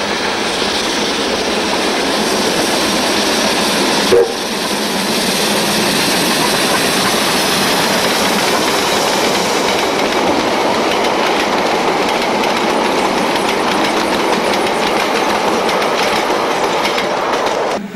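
NZR KA-class steam locomotive KA 945 and its passenger train passing close by at speed, a loud steady rush of engine and wheel noise. Its carriages clatter over the rail joints, and the sound breaks briefly about four seconds in.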